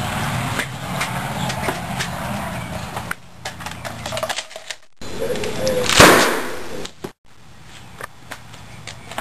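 A single loud gunshot about six seconds in, dying away over about a second. It comes after a few seconds of steady background noise that cuts off abruptly.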